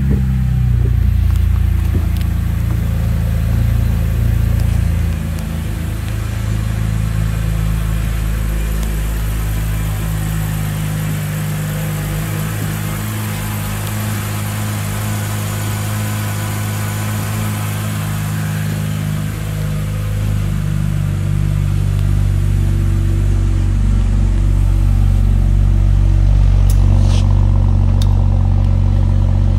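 2010 BMW 328xi's 3.0-litre inline-six idling steadily, heard first from the cabin, then at the engine bay, and louder at the tailpipe near the end.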